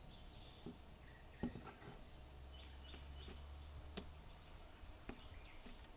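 Faint handling clicks and knocks as a homemade sheath is worked onto an axe head, the sharpest about a second and a half in and again about four seconds in.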